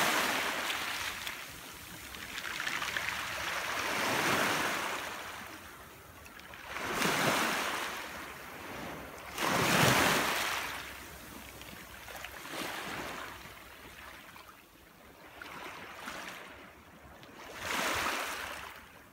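Small waves washing in over a stony shore. Each one swells into a rushing hiss and fades, a new one every few seconds.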